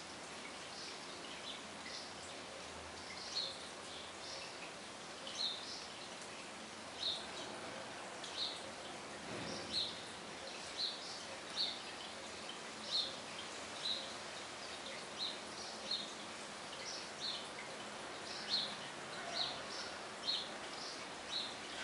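A small bird chirping over and over, short high chirps coming every second or so and growing more frequent from about three seconds in, over a steady background hiss.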